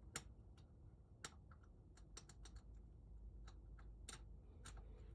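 Faint, irregular small clicks of a lock pick and tension wrench working the pins inside a lock, about fifteen ticks scattered unevenly, while the picker probes for the rearmost pin.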